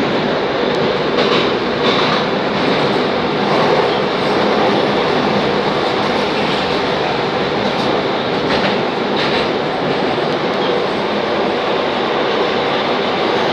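Moscow Metro 81-740.1/741.1 articulated train running at speed through a tunnel, heard inside the car as a loud, steady rumble of wheels on rail, with a few faint clacks from the running gear.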